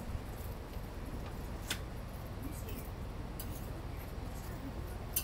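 Thin metal spatula clicking and scraping on a hot griddle as baked dorayaki pancakes are lifted off and set on a wire rack, over a steady low background hum. There is a sharp click about a second and a half in and another at the very end.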